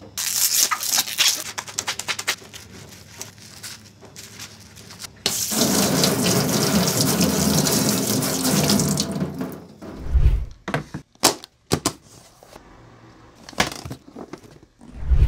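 Tap water running hard into a workshop sink for about four seconds as something is rinsed under it, after a stretch of paper rustling and handling clicks. Then come several dull knocks, the loudest near the end.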